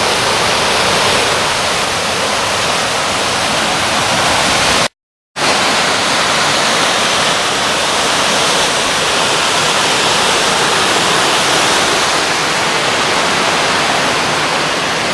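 Rushing water of Martin Creek and its cascades, a loud, steady roar of falling water. It cuts out briefly about five seconds in, then carries on unchanged.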